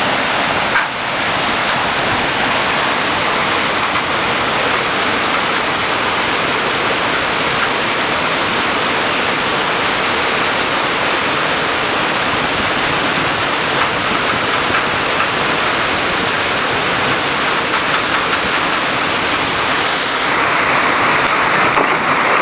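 Steady rushing of water flowing through an ice-passing channel, carrying slabs of ice along. About twenty seconds in the rush turns duller and lower, losing its top hiss.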